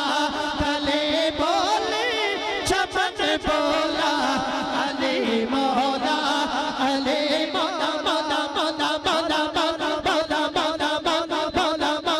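A man singing a devotional naat through a microphone and PA system, his voice wavering in ornamented runs. Under it runs a quick steady beat of sharp strokes, about five a second, which grows stronger in the second half.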